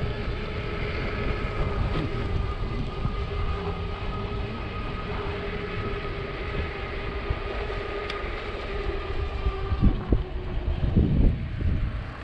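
Wind rushing over the microphone and tyre noise while riding a Lectric e-bike on pavement, with the steady whine of its hub motor. The whine drops away about ten seconds in, and a few heavier gusts buffet the microphone near the end.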